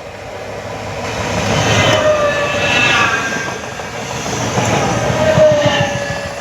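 Train passing close by, with a rapid clatter of wheels over the rails and a pitched whine that falls slightly in pitch. It grows louder to a peak about two seconds in, peaks again near the end, then eases.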